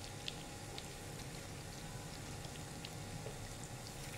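Lentil fritters (moong and maash dal bade) deep-frying in hot oil in a pan: a faint, steady sizzle with scattered small pops and crackles.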